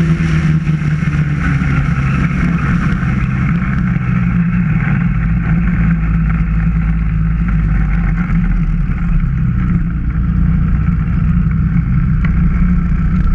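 Snowmobile engine and track running steadily along a snow trail, its note growing duller in the second half.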